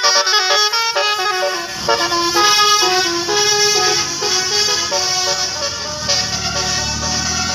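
Tour bus's Basuri-type telolet horn playing a tune of quick stepping notes on several tones at once. The bus's engine rumble comes in about two seconds in and grows louder toward the end.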